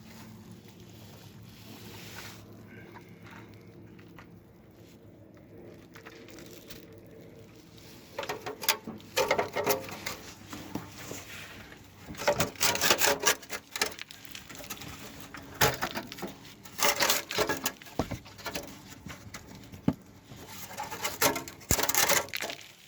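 Bursts of scraping and clattering from hands and tools working, beginning about eight seconds in after a stretch of faint steady hum.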